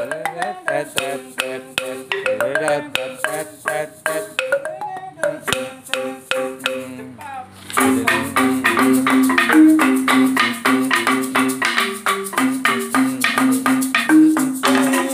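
Gamelan-style music: struck keyed percussion plays a melody of quick ringing notes over drum strokes. About eight seconds in it becomes louder and fuller.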